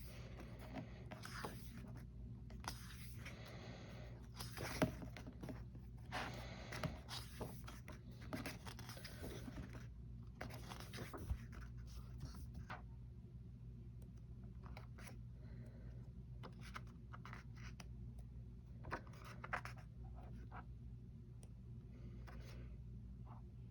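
Pages of a large photo book being turned and handled: soft paper rustles and brushing scrapes, frequent in the first half and sparser later, over a low steady hum.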